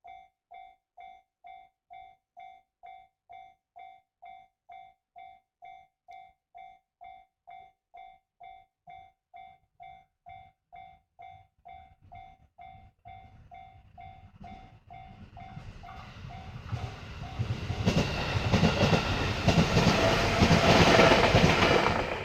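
Railway level-crossing warning bell ringing about twice a second; from about 13 seconds in a train approaches and passes through the crossing, growing louder until it drowns out the bell near the end.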